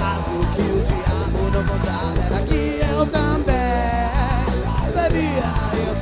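Rock band playing live: electric guitars, a five-string electric bass and a drum kit.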